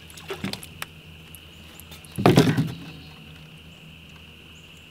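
A fish being landed into a kayak: a few light knocks, then one loud thump about two seconds in.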